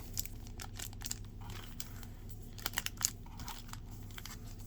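Sealed foil trading-card packs crinkling as they are handled and squeezed one after another, in scattered light crackles.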